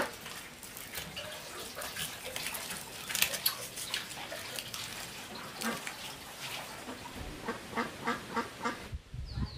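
Birds calling: a quick run of short, repeated calls, about five a second, from about seven seconds in, after scattered clicks and knocks.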